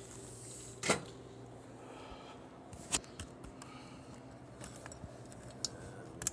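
Sharp clicks and knocks of a redemption-game prize wheel reel assembly being handled on a hard table top, the loudest about a second in and another near three seconds, over a steady electrical hum.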